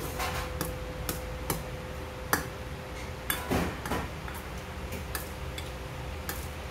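A metal spoon clinking and scraping against a stainless steel bowl of jjajangmyeon noodles: a handful of scattered sharp clicks, the loudest a little over two seconds in, with a brief rustling noise around the middle.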